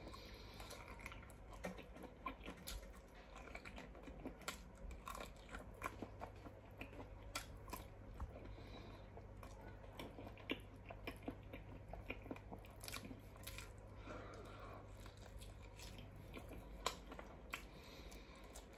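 A person chewing and biting raw seafood up close, with wet mouth sounds and many small scattered clicks.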